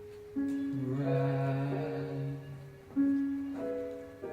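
Musical accompaniment from a stage musical: held chords, with a new chord coming in about half a second in and another about three seconds in.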